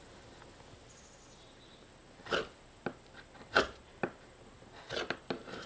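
Steel chisel pushed by hand, scraping and chipping hardened epoxy off a fiberglass boat deck: a few sharp cracks and scrapes, starting about two seconds in.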